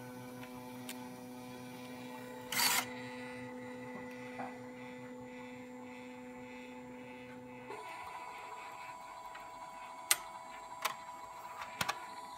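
Zebra P640i card printer running with a steady motor whine that shifts to a higher pitch about eight seconds in. There is a short rushing noise about two and a half seconds in and a few sharp clicks near the end.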